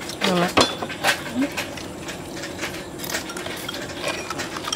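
Chopsticks tapping and clinking against small ceramic rice bowls during a meal: scattered light clicks at an uneven pace.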